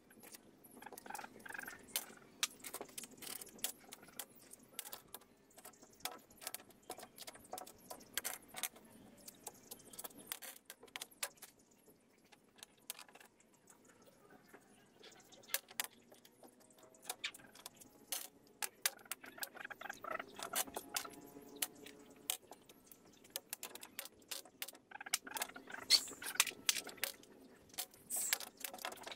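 Loose metal screws, bolts and washers clinking as they are sorted by hand: irregular small clicks and jingles as pieces shift in a palm and are set down on a table, sparser for a few seconds about halfway.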